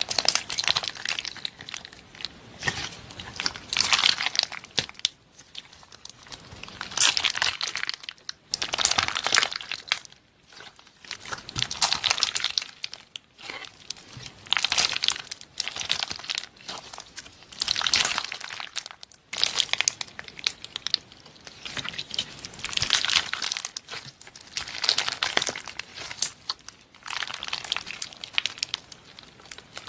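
Slime being squeezed and worked by hand, making crackly, crunchy bursts about every two to three seconds.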